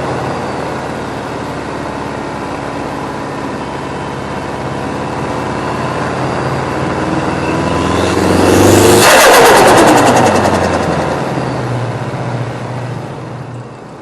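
A car drives past: its engine grows louder to a peak about nine seconds in, then drops in pitch and fades away as it passes.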